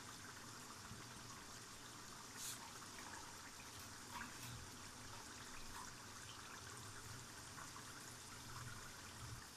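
Faint steady hiss with a few light ticks from a pot of beef trotters simmering in broth on a gas stove.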